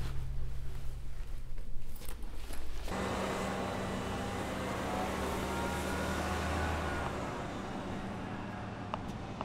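A low steady hum with a few soft clicks gives way abruptly, about three seconds in, to street traffic noise with a bus engine running; its low rumble drops away about seven seconds in.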